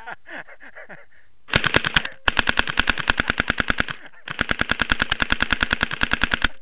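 Customized full-auto airsoft BB gun firing in three bursts of rapid shots, about ten a second, a short one followed by two longer strings.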